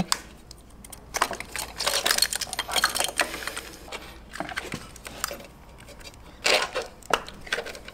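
Hands working loose the thermostat housing and rubber coolant hoses on a motorcycle engine: irregular clicks, light knocks and rubbing of hose and parts. There is a busy stretch about a second in and another near the end.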